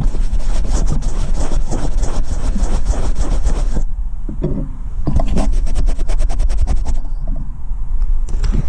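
Handling noise on a drone-mounted action camera: rapid scratching and rubbing as it is held against a jacket, in two long spells, over a steady deep rumble of wind on the microphone.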